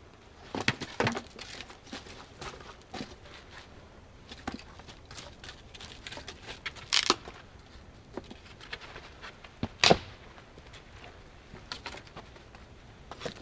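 Dry wood being snapped and handled: irregular sharp cracks and knocks, loudest about a second in, about seven seconds in and near ten seconds, with quieter crackling and rustling between.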